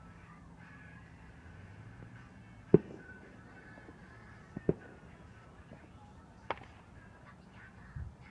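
Firecrackers going off: a handful of sharp, separate bangs, the loudest about three seconds in, then a quick pair, another single bang and a duller one near the end.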